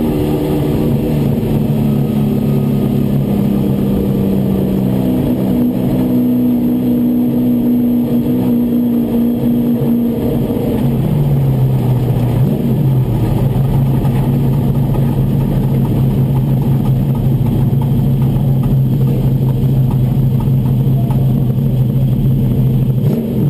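Race truck's engine heard from inside the cab, running steadily at low revs as the truck rolls slowly. It drops to a lower, steady pitch about halfway through and falls away at the very end.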